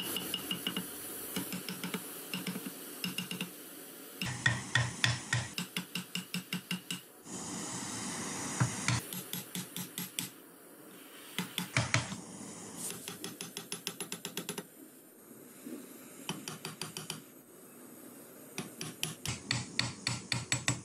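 Quick runs of light hammer taps on a steel chisel pressed against torch-heated spring steel, about four or five sharp metallic strikes a second, with a gas torch hissing steadily between the runs.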